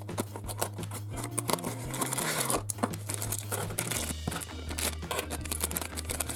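A small cardboard box being opened by hand, then a thin plastic toy bag crinkled and torn open, with a continuous crackling rustle and clicks.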